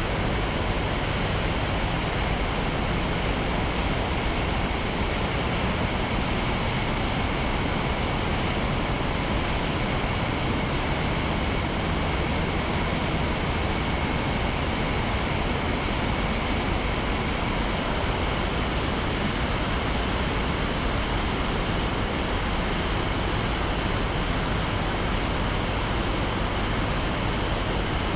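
Steady rush of wind over a wing-mounted camera, with the Rotax 447 two-cylinder two-stroke engine of a Mini-Max 1600R ultralight running underneath in flight. The noise holds even throughout, with no change in level.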